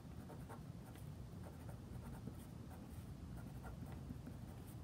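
Fine-tip pen scratching faintly across the page as it writes block capital letters, a quick run of short strokes.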